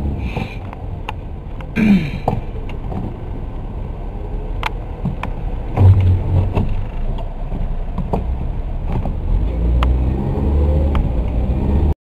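Car cabin noise while driving on a wet road: a steady low rumble of engine and tyres, with scattered sharp clicks and a few heavier knocks.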